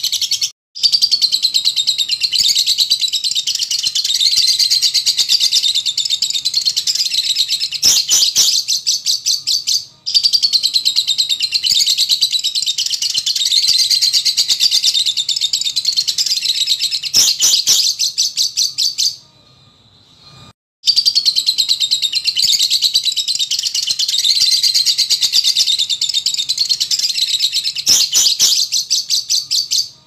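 Caged lovebird chattering in long bouts of rapid, high-pitched trilling, each about nine seconds, with two short breaks about ten and twenty seconds in.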